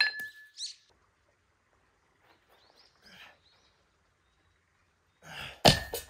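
Metal dumbbell plates clinking with a short ringing note as they are handled, and a louder clank of the dumbbells near the end. Small birds chirp faintly in between.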